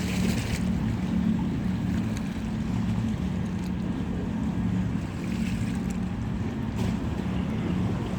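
Boat engine running steadily with a low, even drone, under a haze of water and wind noise.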